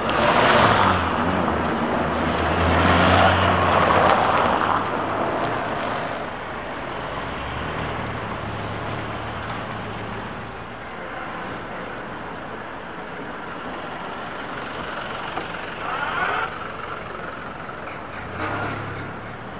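City road traffic: a vehicle engine running close by, loudest in the first four or five seconds, then a quieter, steady traffic hum with two brief swells near the end.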